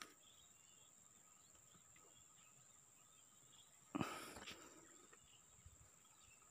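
A single sharp rifle shot about four seconds in, dying away within about half a second, over a faint steady high-pitched insect drone.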